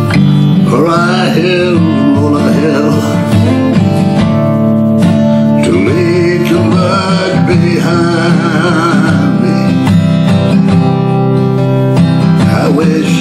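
A man singing a slow country-blues song in D minor to his own strummed steel-string acoustic guitar, his voice holding a long note with vibrato about seven seconds in.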